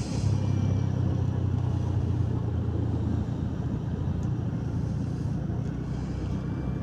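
Motorcycle engine running steadily at low road speed, with wind and road noise on the ride-along microphone. The engine note eases off a little about three seconds in.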